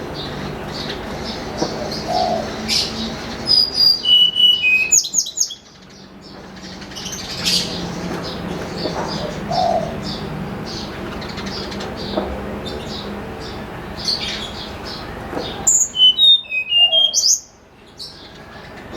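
Tledekan gunung singing: two loud phrases of clear, flute-like whistled notes that step down in pitch, one about four seconds in and one near the end. Steady chirping carries on between them.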